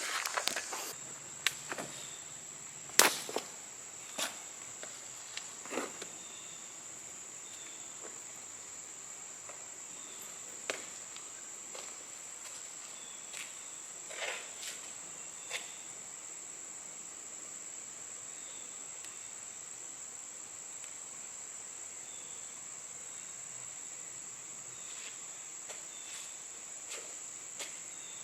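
A steady, high-pitched insect chorus, with a few sharp clicks and crunches scattered through the first half.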